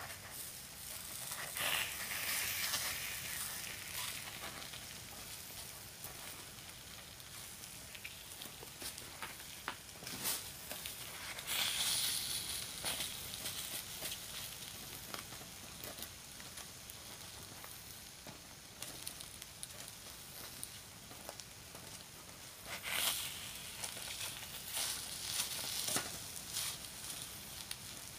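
Takoyaki batter sizzling in the hot cups of a Nichinen electric takoyaki plate, flaring louder a few times as balls are turned. Wooden skewers scrape and click against the plate throughout.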